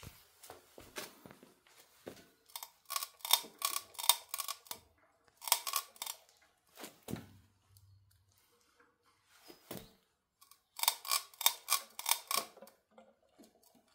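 E-bike making sharp cracking clicks in runs of several a second, with pauses between. This is the crack noise that the owner treats as a fault on the bike.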